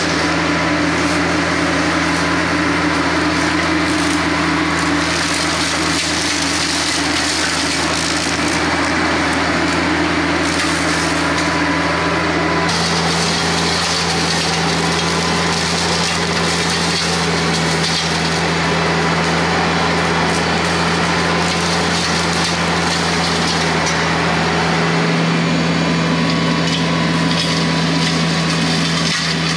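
A TYM tractor's diesel engine running steadily under load, driving a Hardee Brush Tiger hydraulic rotary cutter that is chewing through brush and small limbs with a constant splintering of wood. The sound changes character about a third of the way in.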